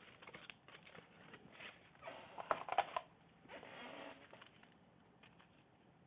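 Small items being handled and rummaged on a repair bench: light scattered clicks, a burst of rattling with two sharp clicks about two and a half seconds in, then a short rustle.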